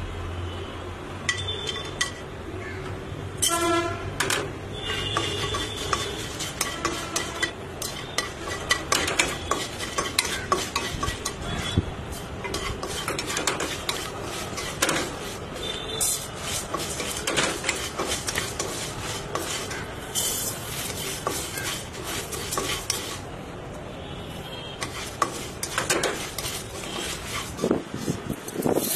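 Wooden spatula stirring and scraping dried red chillies and cumin seeds around a nonstick wok, a steady run of scrapes and small clicks. Near the end the roasted spices are tipped from the wok into a steel mixer jar.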